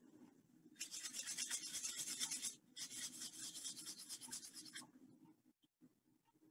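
Oil paint being scrubbed onto a canvas, a dry rasping rub in two long passes: the first starts about a second in, and the second stops about five seconds in. A low steady hum runs underneath.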